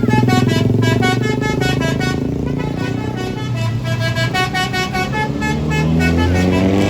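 A bus's telolet basuri horn plays a fast tune of short notes at changing pitches over the low rumble of the bus's engine. The engine note rises near the end.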